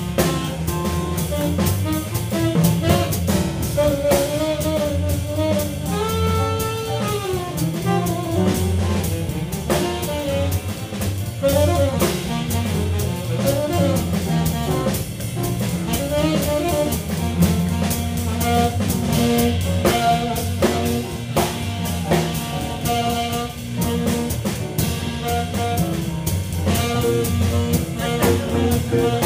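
Small jazz band playing live at a swing tempo: a tenor saxophone plays a flowing melodic line over double bass, piano, archtop guitar and a drum kit with ride cymbal.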